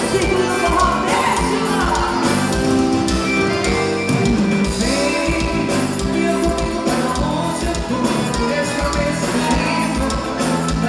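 Traditional forró band playing a passage with no sung words: held chords over a steady low drum beat.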